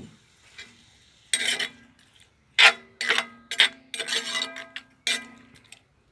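A metal utensil clanking and scraping against a wok while stir-frying vegetables: about six clattering strikes, several with a ringing metallic tone.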